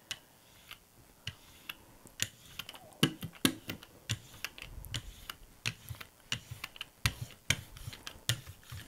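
Hand brayer rolled back and forth over a thin, tacky layer of acrylic paint on a gel printing plate, giving a run of sharp clicks, about two to three a second.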